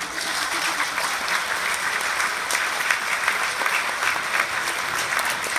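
Audience applauding, the clapping breaking out suddenly as the music ends and going on steadily.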